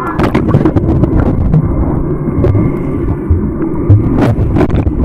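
Muffled underwater rumble of water around a submerged camera, with many sharp clicks and knocks from bubbles and the camera housing as swimmers move about.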